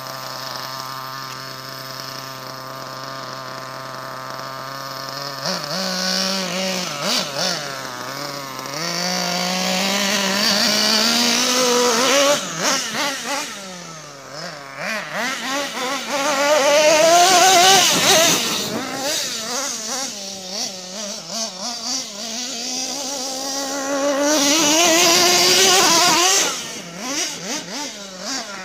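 Kyosho radio-controlled monster truck's small engine, running steadily for about five seconds, then revving up and down over and over as the truck is driven.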